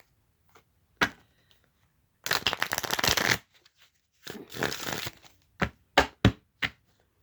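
A deck of tarot cards being shuffled: two quick flurries of riffling cards, a second or so each, followed by four short, sharp taps near the end.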